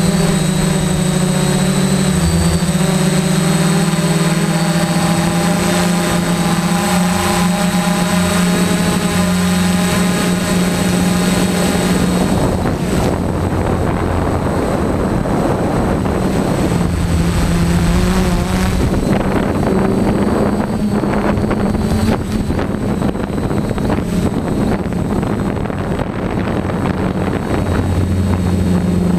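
DJI F450 quadcopter's electric motors and propellers running in flight, heard close from the onboard GoPro Hero3. A steady, loud hum whose pitch shifts slightly as the throttle changes. In the second half a rushing noise partly covers the hum.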